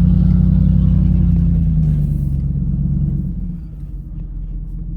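Dodge Ram pickup's Hemi V8 engine running under steady throttle, heard from inside the cab. It eases off a little over three seconds in, leaving a lower, quieter rumble.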